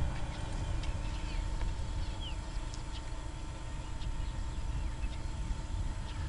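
Steady low rumbling field ambience with a few faint, high, short chirps and ticks.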